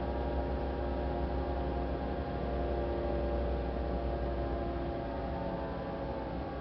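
Steady mechanical hum with several steady tones over a low drone from the pontoon bridge's hydraulic winch system as its cable pulls the floating barge back into place.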